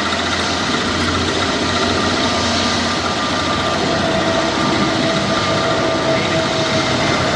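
Jet engines of a Boeing 747-400 running, a loud steady rush with high whining tones; a lower tone comes in about halfway through and slides slightly down.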